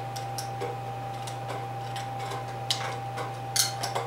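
Hand tin snips cutting off a small piece of sheet metal: scattered sharp snipping clicks, with a quicker, louder cluster near the end.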